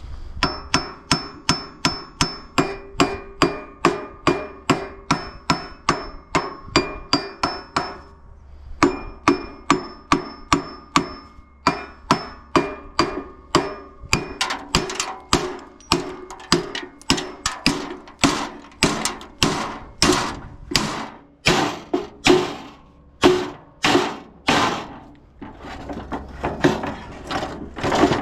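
Hammer striking metal parts of an air compressor being taken apart for scrap: a long run of blows, about two to three a second, with the metal ringing under the early strokes. There is a short break about eight seconds in, and the later blows come harder.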